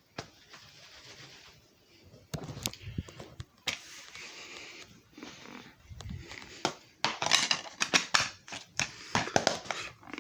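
Handling sounds: irregular clicks, knocks and rustling, growing busier and louder in the last three seconds.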